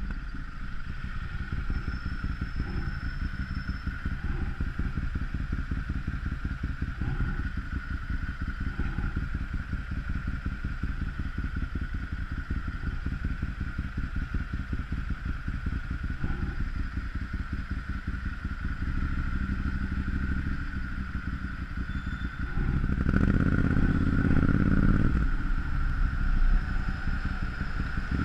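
Ducati Monster 796's air-cooled L-twin engine running steadily under way, with a louder rise in revs lasting a couple of seconds near the end.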